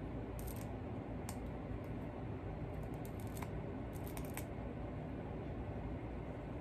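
Light, scattered clicks and ticks of a small model-locomotive part with wires attached being fiddled with in the fingers, over a steady low background hum.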